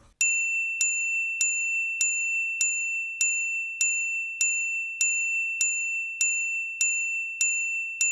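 Electronic chime sound effect: a steady high-pitched tone with a sharp ping about every 0.6 seconds, fourteen in all, each ping counting one more scorpion badge.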